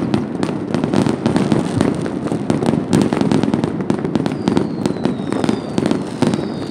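Many fireworks and firecrackers going off at once across a city: a dense, continuous mass of distant bangs and crackling, with sharper nearer pops on top. From about two-thirds of the way in, several high whistles glide slowly down in pitch.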